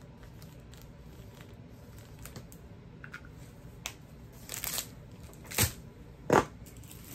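Plastic packaging and a plastic-covered diamond painting canvas crinkling and rustling as they are handled, with faint clicks and then three louder rustles in the last few seconds.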